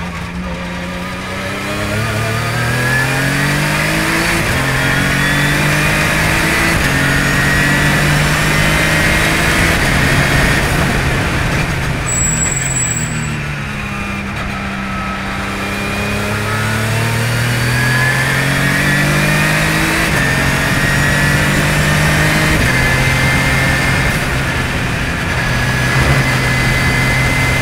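Radical RXC track car's engine heard from the open cockpit, accelerating hard with its pitch climbing in steps at each upshift. It drops away as the driver lifts for a corner, then climbs through the gears again. A brief high whistle sounds about twelve seconds in.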